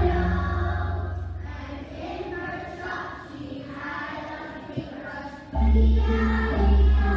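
Children's choir singing a song together, with deep, held low notes under the voices at the start and again about five and a half seconds in.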